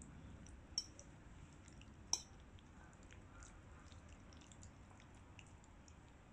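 A metal fork clinks sharply twice against a ceramic plate, near the start and again about a second later, with faint light ticks of the fork working through spaghetti over quiet room tone.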